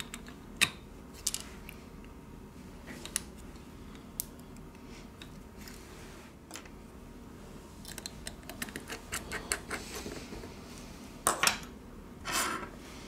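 Small clicks and taps of a phone motherboard being set and pressed into its midframe, with a sharp click about half a second in and a run of light ticks later on. Near the end come two short scraping rustles.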